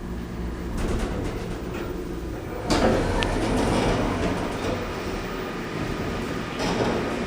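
ThyssenKrupp Oildraulic hydraulic elevator cab running: a steady low hum and rumble, swelling into a louder rushing stretch about three seconds in and again briefly near the end.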